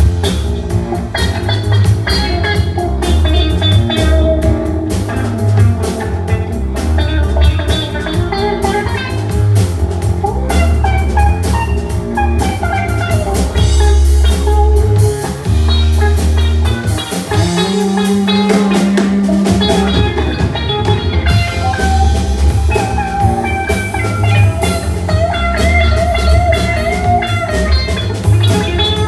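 A band playing an instrumental passage: drum kit keeping a steady beat under guitar, with no singing.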